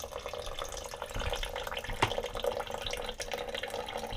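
Water draining from a sea strainer's drain-bolt hole in a thin steady stream, trickling into a small plastic bucket, as the strainer is emptied so it cannot freeze and burst.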